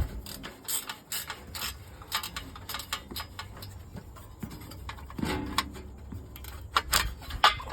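Hand socket ratchet clicking in irregular spurts, with sharp metal clinks of tools against engine hardware as bolts are worked loose.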